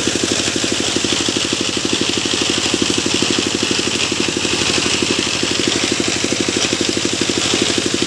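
A sawmill machine's engine running steadily, with an even, rapid throb.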